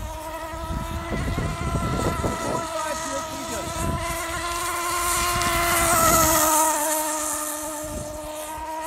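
CMB .45 glow-fuel nitro engine of an RC outrigger racing boat running at speed: a steady high whine that grows louder to a peak about six seconds in, then drops slightly in pitch as the boat goes past.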